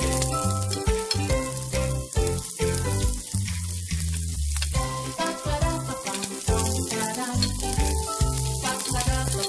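Minced onion and garlic sizzling in hot oil in a frying pan, under background music with a steady bass pattern.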